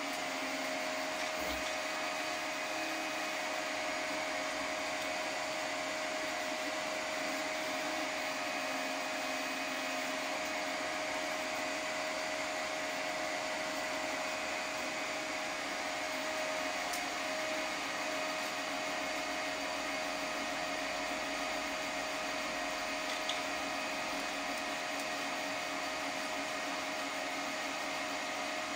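Large homebuilt 3D printer running a print: a steady whir of fans and motors with a few constant tones.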